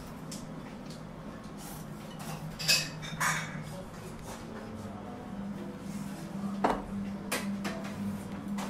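Dishes and utensils clinking in a ramen shop, a handful of sharp clinks and clatters over a steady low hum.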